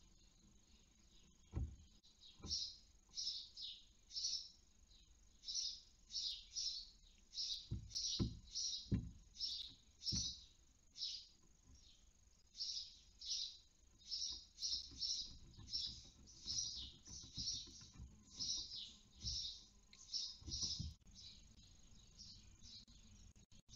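Barn owl chicks giving repeated hissing begging calls, short rasping hisses about one to two a second, several overlapping at times. A few dull thumps sound among them.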